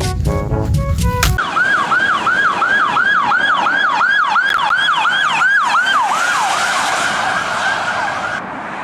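Electronic siren in a fast yelp, each cry dropping in pitch about three times a second. It then holds one steady high tone for a couple of seconds before cutting off. Music plays for the first second or so.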